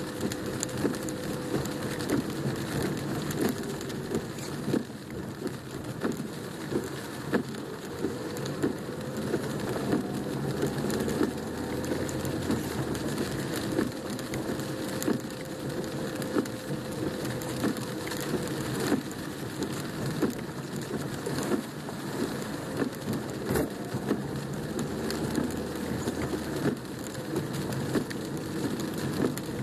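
Rain drumming on a car's roof and windshield, heard from inside the cabin: a dense patter with many sharp, irregular drop impacts over a steady low hum from the car.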